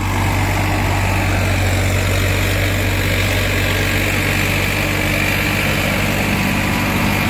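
Farmtrac 60 tractor's diesel engine running steadily under load while driving a 7-foot rotavator, its blades churning through the soil.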